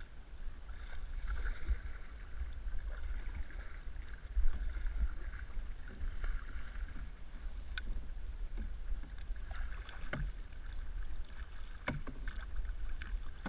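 Water swishing and lapping against a canoe's hull as it is paddled, over a low rumble of wind on the microphone, with a few light knocks, one about eight seconds in and two more near the end.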